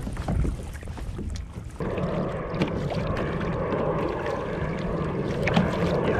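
A conventional fishing reel being cranked steadily while a catch is brought up to the kayak, starting abruptly about two seconds in.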